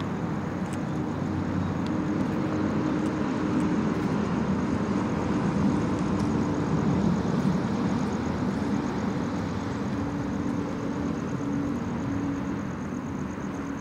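A vehicle engine running steadily: a constant drone with a low hum that does not change.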